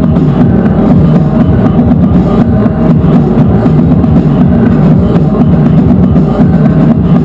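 Live noise music: a loud, unbroken wall of dense sound, heaviest in the low end, with rapid pounding hits running through it.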